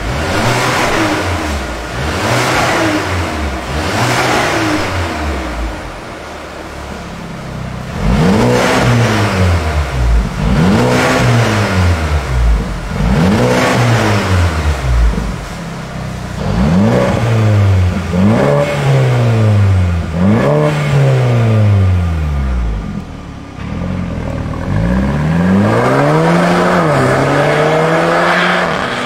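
Mercedes-Benz W177 A250's turbocharged 2.0-litre four-cylinder through a Fi Exhaust valvetronic catback, revved in repeated blips. For the first few seconds the exhaust valves are closed and the revs are lighter and quieter. From about eight seconds in the valves are open and the revs come louder and fuller, ending in a longer held rev whose pitch rises near the end.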